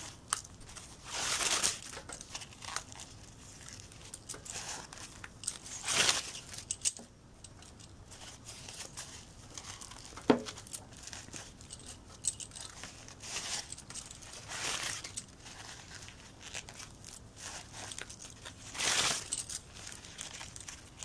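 Fabric strip rustling in irregular bursts as it is wrapped tightly round a ring-shaped purse handle. A single short click comes about ten seconds in.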